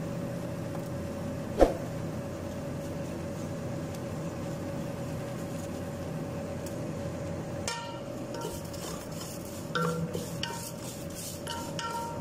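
Small rice vermicelli frying in hot oil in a pan with a steady hiss, stirred with a utensil until light brown. There is one sharp knock about a second and a half in, and short scraping clinks of the utensil against the pan in the last few seconds.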